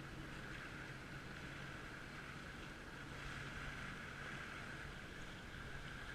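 Jet ski engine running at a steady speed, an even drone with wind and water hiss over it.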